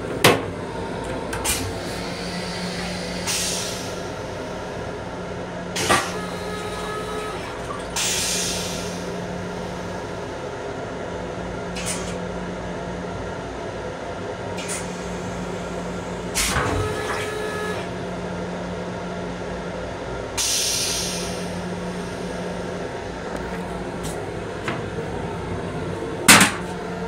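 Running noise of a Long Island Rail Road M7 electric railcar heard inside its small restroom: a steady rumble with a low hum that comes and goes, a few short hisses of air, and several sharp knocks. The loudest, a clack near the end, comes as the plastic toilet seat is moved by hand.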